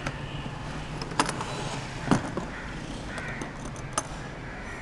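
Latches of a hard plastic tool carrying case being flipped open, then the case being laid down and handled, giving a handful of sharp plastic clicks and knocks.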